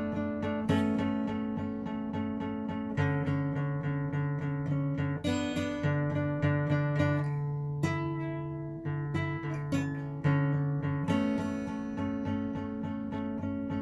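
Acoustic guitar strummed as an instrumental passage between sung lines: a steady run of chord strokes, with the chord changing every two to three seconds.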